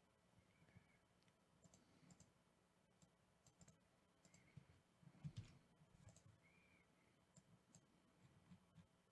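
Very faint, irregular clicks of a computer mouse, the loudest a little past halfway, over quiet room hiss.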